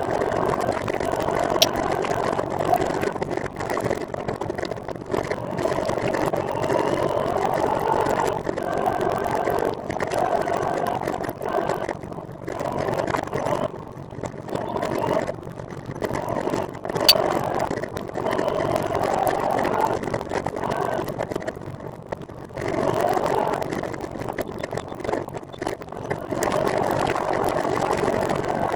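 Steady, fluctuating road and vehicle noise heard while riding a recumbent trike, with a sharp click near the start and another a little past halfway.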